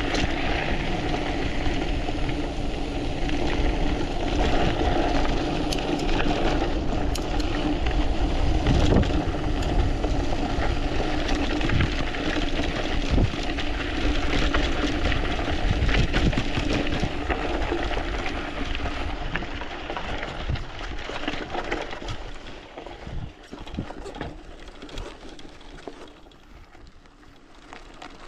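Mountain bike descending a dirt trail: wind rushing over the microphone and tyres rolling on dirt, with clicks and rattles from the bike over bumps. The noise dies down over the last several seconds.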